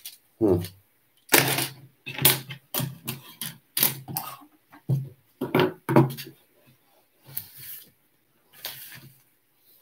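Hands rummaging through loose plastic LEGO pieces on a wooden tabletop: a run of short, sharp plastic clicks and clatters, mixed in the first six seconds with a man's low muttering under his breath.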